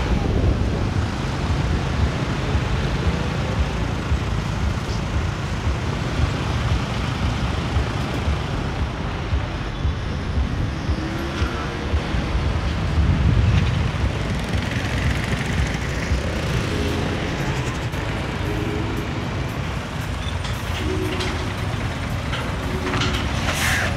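Street traffic noise with a steady low engine rumble from vehicles.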